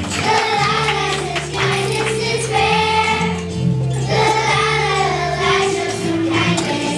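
A group of children singing a song together over held instrumental accompaniment notes.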